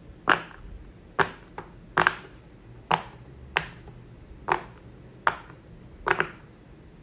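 Bubbles of a unicorn-shaped silicone pop-it fidget toy pressed in one at a time by finger, each giving a sharp pop, about one a second, with two close together near the end.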